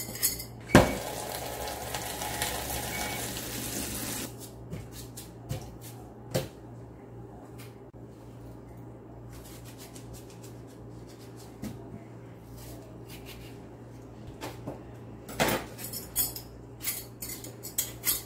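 Kitchen knife and dishes clinking at a stainless-steel sink while fruit is peeled and cut: one sharp clatter about a second in followed by about three seconds of hiss, then scattered knife clicks and scrapes that grow busier near the end.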